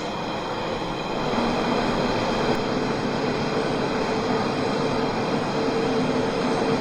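London Underground 1992-stock Central line train running, heard from inside the carriage: the rumble builds over the first second or so, then holds steady with a faint motor hum.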